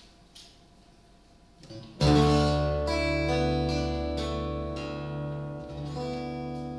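Acoustic guitar, quiet at first, then a loud strummed chord about two seconds in that rings on and slowly fades, with a few more notes picked over it as it dies away.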